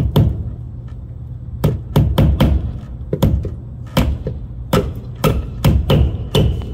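A hammer tapping in the small nails of cable clips that hold a Cat6 network cable along an edge: about fifteen sharp taps in short, irregular clusters.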